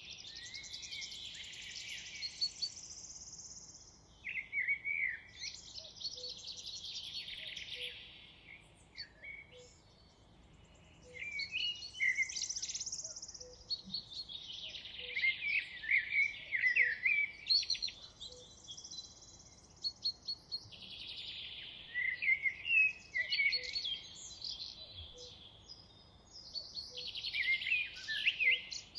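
A songbird singing in long, rapidly varying warbled phrases of a few seconds each, with short pauses between them.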